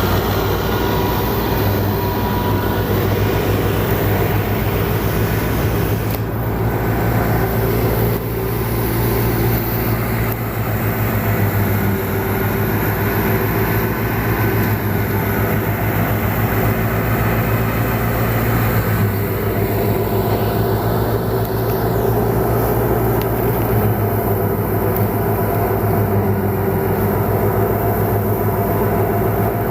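Tractor-driven wheat thresher running steadily: a low, even engine hum under a loud rushing noise from the threshing machinery.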